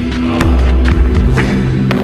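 Background music with a steady beat and held low notes.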